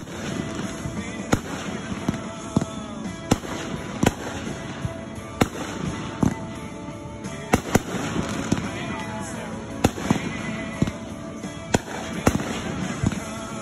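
Aerial fireworks going off: a string of sharp bangs from bursting shells, irregular but roughly one a second, with crackle in between.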